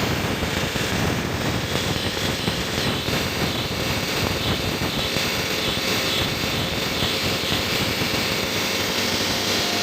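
CNC milling machine running, its spindle whirring steadily as the cutter mills a workpiece, with a dense grinding texture from the cut.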